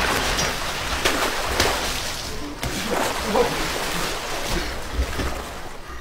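Water splashing and sloshing in bursts as a person flounders in a hole full of water.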